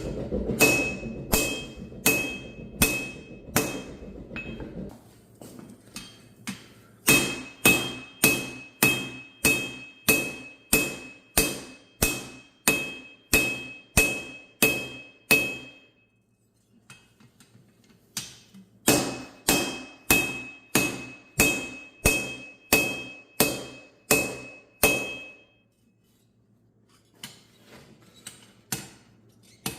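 Forging hammer striking steel on an anvil, about two blows a second in three runs with short pauses between. Each blow carries a high ringing note from the anvil, and a few lighter taps come near the end. A low rumble fades out about five seconds in.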